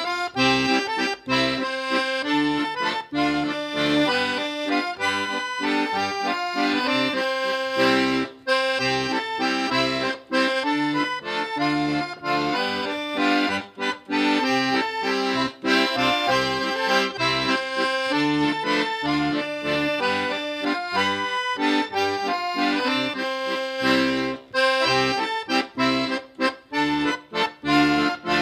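Instrumental background music: a tune of many quick notes over a steady bass line.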